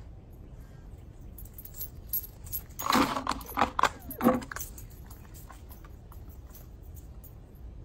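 Small metal pieces jingling and clinking in a short flurry about three to four and a half seconds in, with lighter scattered clicks around it.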